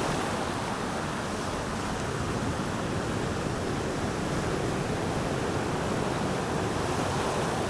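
Ocean surf washing steadily onto a beach, a continuous even noise with no distinct breaks.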